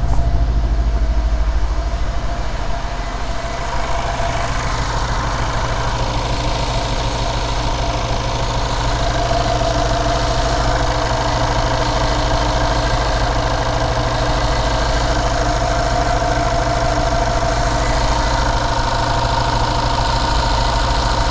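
Mercedes-AMG E63's M157 5.5-litre twin-turbo V8 idling steadily, a smooth, even idle that sounds healthy. The engine has just been restarted after a coolant-leak repair.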